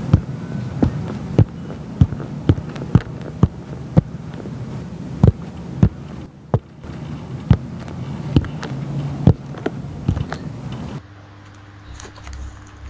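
A series of sharp thumps, about two a second and unevenly spaced, over a low steady hum. They stop abruptly about eleven seconds in.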